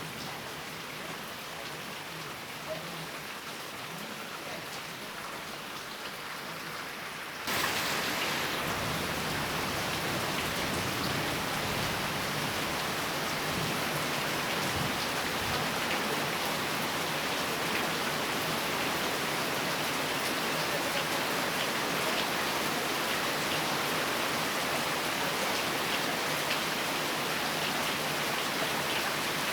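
Steady rain, lighter for the first seven seconds or so, then abruptly louder and heavier.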